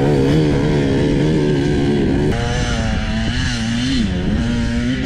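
Dirt bike engine running at low revs, its pitch wobbling up and down with small throttle movements; the engine note shifts abruptly a little over two seconds in.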